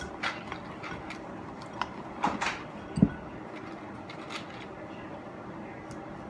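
Small plastic jewels and their containers being handled while being added to slime: scattered light clicks and taps, with one louder low thump about three seconds in.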